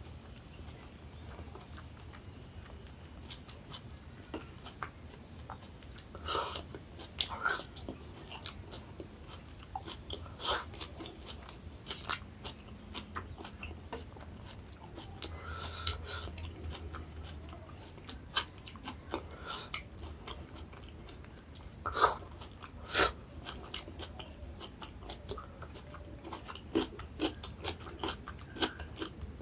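Close-miked chewing of a meal of rice with taro curry and mustard greens: wet mouth sounds and lip smacks, with a few louder smacks scattered through.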